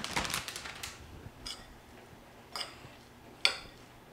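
Plastic bag of shredded cheese crinkling for about a second, then three short, sharp clicks about a second apart.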